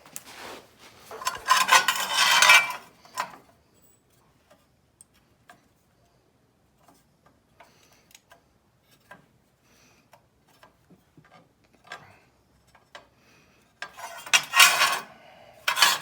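Sheet metal being handled: two stretches of loud scraping and rattling, about a second in and near the end, with scattered light clinks and taps between.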